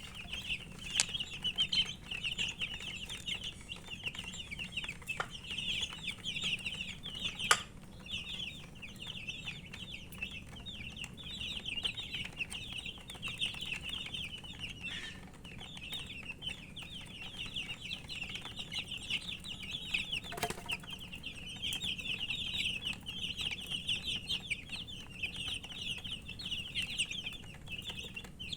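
A crowd of baby chicks peeping continuously, many short high peeps overlapping, a sound the uploader puts down to the chicks' thirst for drinking water. A sharp knock about seven seconds in and another about twenty seconds in.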